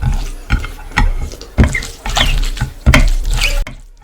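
Close-miked wet eating sounds of rice and chicken masala gravy: a run of loud, sharp, squelching mouth smacks, each with a low thud, that stops abruptly near the end.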